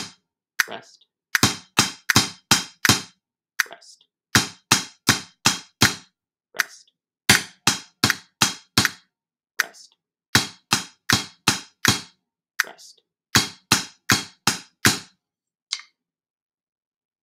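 Snare drum struck with alternating sticking at a slow, even tempo: five bars of the same figure, each a group of five sharp strokes followed by a pause, with a faint tick in each pause. The playing stops about fifteen seconds in.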